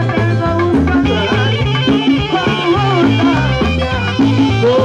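Tropical dance band playing a salsa-style instrumental passage with congas, a repeating bass line and melodic lines over it.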